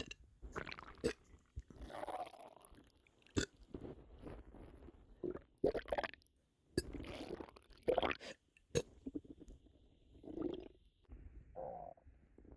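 Stomach rumbling and gurgling from a bloated, upset stomach, coming in irregular bursts of a second or so, with a few sharp clicks between them.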